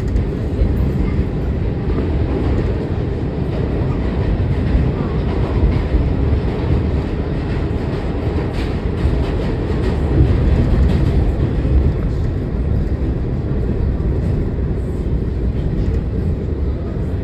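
New York City subway train running at speed, heard from inside the car: a loud, steady rumble of wheels on the rails, with a few faint clicks near the middle.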